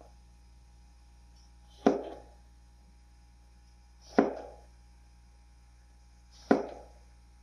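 Kitchen knife slicing through a luffa (sponge gourd) onto a cutting board: three sharp chops, about one every two seconds, each dying away quickly.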